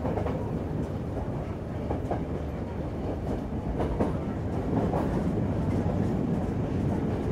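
Moving passenger train running along the track: a steady rumble of wheels on rail, with scattered sharp clacks as the wheels cross rail joints, heard from an open carriage doorway.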